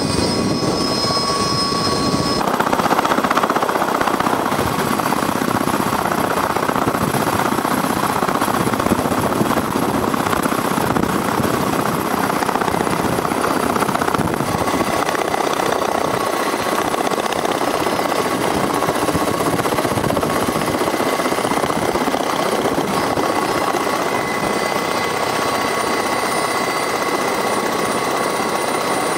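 Military helicopter noise: a steady rotor and engine din with a high, steady whine over it. The sound changes abruptly about two seconds in and again around fourteen seconds in.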